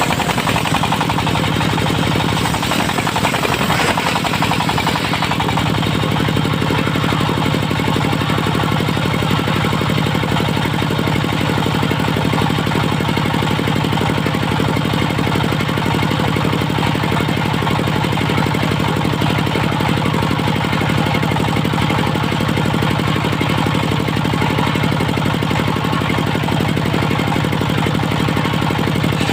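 Diesel engine of a portable circular-saw sawmill running steadily with a fast knocking beat. A higher hiss in the first few seconds fades out about five seconds in.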